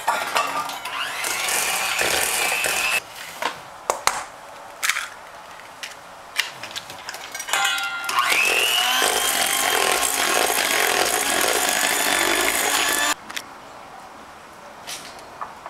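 Electric hand mixer beating eggs one at a time into creamed butter and sweetener in a stainless steel bowl. It runs for about three seconds and stops, leaving a pause with a few sharp knocks. It starts again with a rising whine about eight seconds in, runs for about five seconds, then cuts off.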